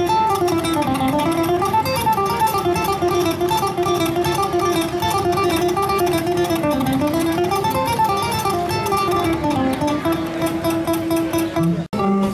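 A 21-string kora, the West African harp-lute with a gourd body covered in cow skin and fishing-line strings, played solo: a continuous rolling plucked melody over a repeating lower line. It drops out for an instant near the end.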